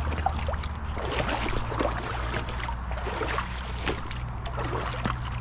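Boots wading through shallow creek water, with irregular small splashes and sloshes over the steady flow of the creek.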